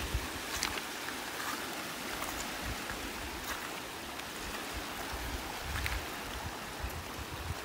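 Small waves washing onto a stony beach, a steady hiss of surf, with a few faint sharp clicks and some low wind rumble on the microphone near the end.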